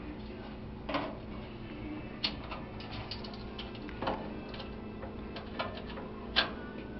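Small metal clicks and clinks as a hand works the wire retaining clips loose from under a gas grill's burner, with a few louder clicks about one, two, four and six seconds in, over a steady low hum.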